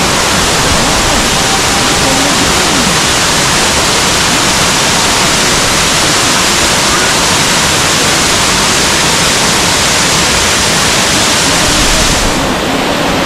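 Loud, steady rush of falling water from Girlevik Waterfall. About a second before the end the high hiss drops a little.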